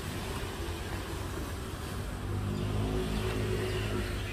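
A motor engine running, its steady hum coming in about halfway through and lasting to the end, over a constant rush of outdoor noise.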